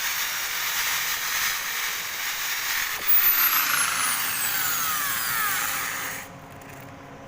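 Electric drill spinning a wire brush against a metal engine block to scrub off rust and dirt. About three seconds in, a whine falls in pitch, and the scrubbing stops suddenly just after six seconds.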